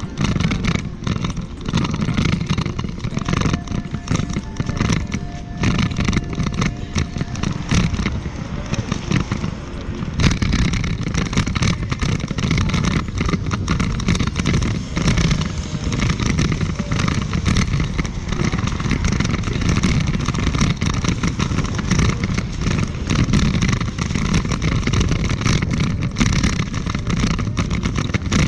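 Heavy, fluttering wind rumble and hiss on the microphone of a moving camera, loud and continuous with irregular buffeting.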